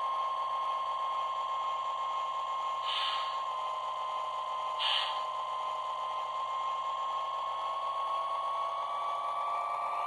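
Lionel LionChief Plus GP-7 O gauge diesel locomotive, shell off, running slowly on the track: a steady motor-and-gear whine that rises slightly in pitch near the end. Two brief rushing noises come about two seconds apart. It runs smoothly now that its wheels are pressed fully onto the axles, curing the shimmy.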